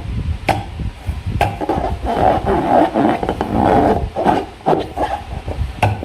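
Hands squeezing slime and handling a rubber balloon: uneven squelching and rubbery rasping, broken by a few sharp clicks.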